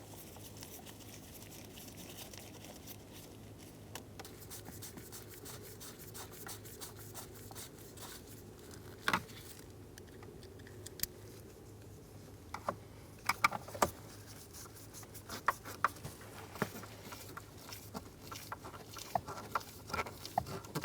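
Hand-tool and trim handling noise while the steering column shroud is fastened: a rapid faint ticking, then from about nine seconds in a scatter of sharper clicks and knocks of plastic trim and small parts.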